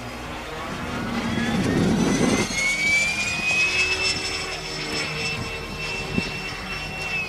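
Large RC jet's 130 mm electric ducted fan whining at high power in flight; the whine rises in pitch over the first few seconds and then holds steady, with a rush of air about two seconds in.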